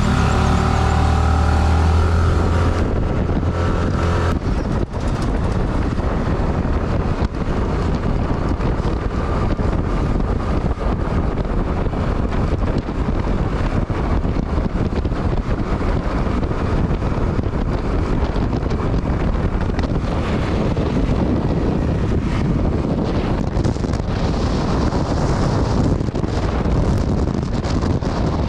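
Motor scooter engine pulling away, its pitch rising for the first two to three seconds, then steady wind noise rushing over the microphone as the scooter rides along, with the engine running under it.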